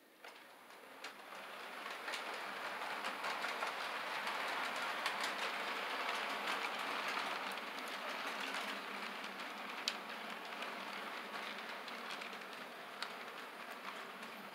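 HO scale model freight train rolling past on the track, a steady rolling clatter of the cars' wheels with occasional sharp clicks. It builds up within the first two seconds as the train starts moving.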